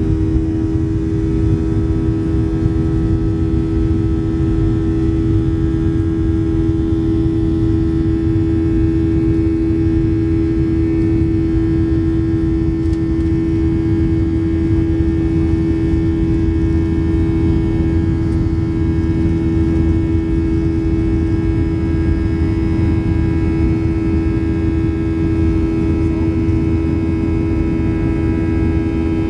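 Boeing 737-700 cabin during the climb after takeoff: the CFM56-7B turbofan engines at climb power give a steady drone. A strong steady hum sits over a low rumbling noise, unchanging throughout.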